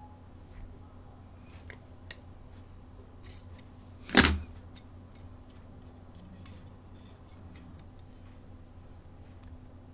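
Light clicks and ticks of small tools and plastic parts while a mobile phone is taken apart, with one much louder, brief clatter about four seconds in.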